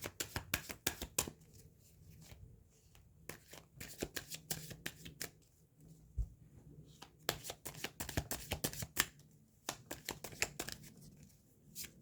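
Tarot deck being shuffled by hand: bursts of quick, crisp card flicks and riffles with short pauses between them.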